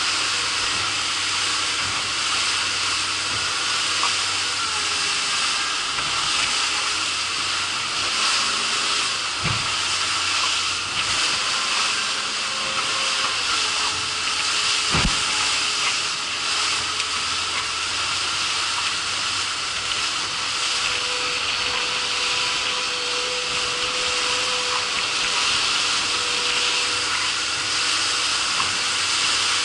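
Small boat's outboard motor running fast through choppy sea under a steady rushing hiss of wake spray and wind, with the motor's faint tone underneath. Two thumps, about nine and fifteen seconds in.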